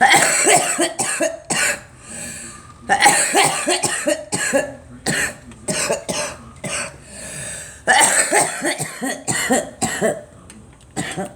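A girl coughing in repeated fits, each fit a run of quick, sharp coughs with short pauses between the fits.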